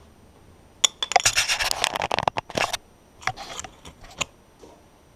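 Handling noise: a burst of rattling clicks and scrapes lasting about two seconds, then a few separate clicks, as something is picked up or moved close to the microphone.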